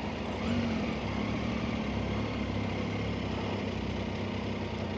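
Motorcycle engine running steadily at low revs in slow traffic, heard from the rider's seat.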